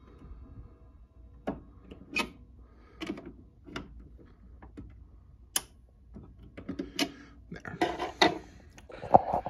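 A Kienzle wall clock being wound by hand: the winding ratchet gives sharp clicks at uneven intervals, a few spread out at first and then quicker and louder near the end.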